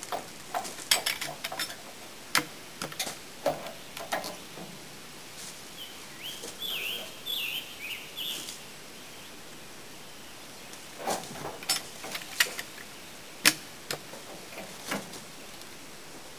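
Scattered knocks and scrapes as a log is pried and rolled by hand with a peavey, the wooden handle and steel hook clunking against the log. A bird chirps for a couple of seconds in the middle.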